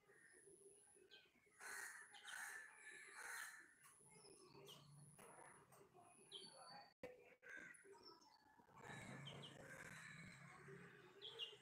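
Faint, scattered small-bird chirps and brief high whistled calls, with a faint low hum in the background at times.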